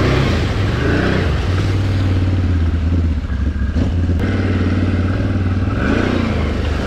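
Can-Am Renegade XMR 1000's V-twin engine pulling steadily in low range through a flooded mud hole, under load, with small rises and falls in revs.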